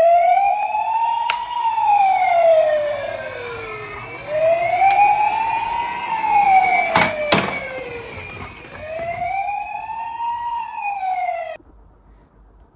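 Wailing emergency siren, its pitch sweeping slowly up and down three times and then cutting off abruptly near the end. Two sharp clicks come in the middle.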